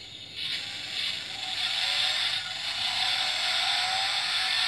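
A toy Mustang GT's built-in sound effect playing through its small speaker: a tinny hiss with faint tones that rise in pitch through the second half.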